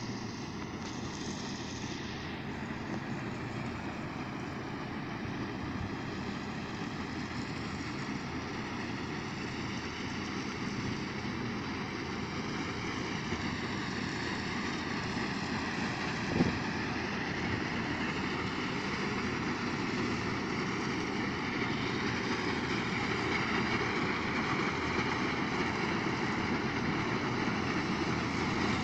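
Harvest machinery running steadily, an engine with a whine that wavers slightly in pitch, growing slowly louder. There is a single short knock about halfway through.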